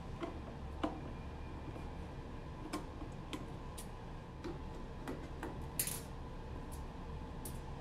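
Phillips screwdriver backing screws out of a stainless-steel enclosure: scattered light metallic clicks and ticks, spaced irregularly, with a short scrape about six seconds in.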